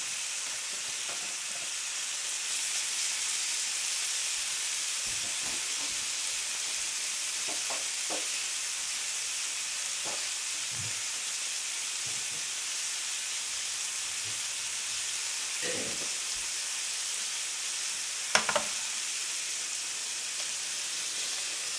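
Spicy marinated pork shoulder sizzling steadily in a hot nonstick frying pan, with a couple of sharp clicks near the end.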